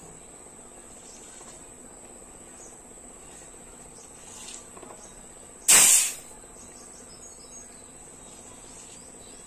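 A short, loud hiss of compressed air, about half a second, a little past the middle, from the PCP airgun's air system charged to about 1,000 psi while its fittings are checked for leaks. A steady high-pitched whine runs underneath.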